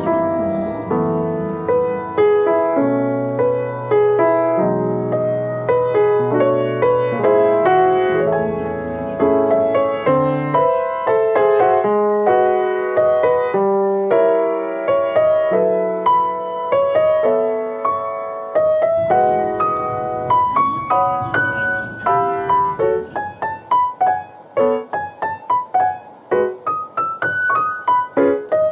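Background music: a solo piano melody that runs throughout, the notes becoming sparser and more detached in the last few seconds.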